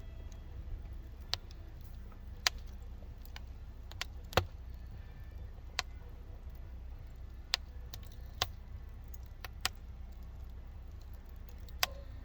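Wood fire crackling: sharp single pops at irregular intervals, about one every second or two, over a low steady rumble.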